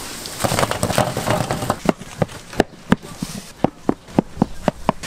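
A run of sharp knocks on a work surface, coming about three to four a second from about two seconds in, after a stretch of loose kitchen clatter: doughnut dough being cut or worked at the stall's table.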